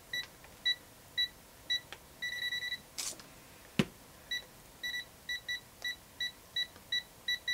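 AstroAI M4KOR multimeter in non-contact voltage (NCV) mode giving short, high beeps, about two a second, with a quick run of faster beeps about two seconds in, as it senses a low voltage level near a live mains cord. A brief rustle and a sharp click come midway.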